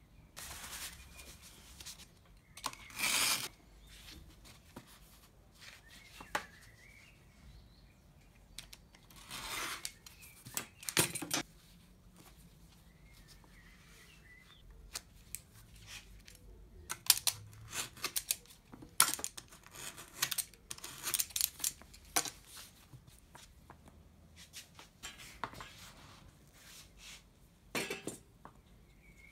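Hands working with tools and small leather and wood pieces on a workbench: scattered taps, clicks, scrapes and rustles as pieces are picked up, set down and stacked.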